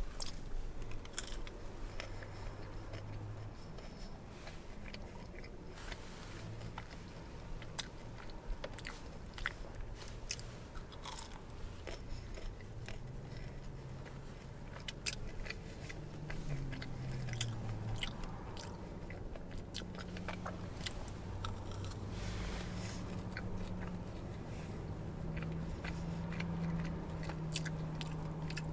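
A person chewing crispy fried chicken nuggets close to the microphone, with many sharp crunches spread through the chewing.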